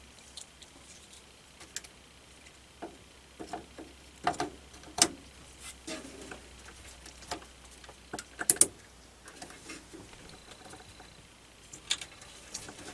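Scattered clicks and light plastic knocks as Corsair DDR3 RAM sticks are handled, with the busiest cluster about eight and a half seconds in.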